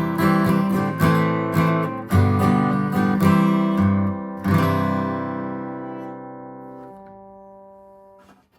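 Acoustic guitar strumming the closing chords of a song; the last chord, struck about four and a half seconds in, is left to ring and fades out.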